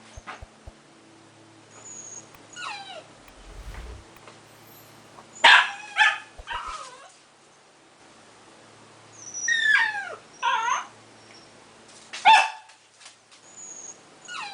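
Dog whimpering: short, high, whining cries that fall in pitch, coming in several groups, loudest about five and a half and about twelve seconds in.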